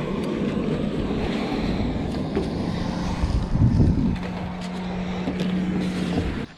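A motor engine running steadily, a continuous low hum that holds a steady tone for the last couple of seconds before cutting off abruptly.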